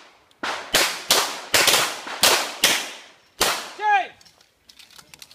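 Pistol shots from two shooters firing at targets: about eight sharp reports in quick, uneven succession over the first three and a half seconds. A brief pitched sound that rises and falls comes right after, followed by faint clicks.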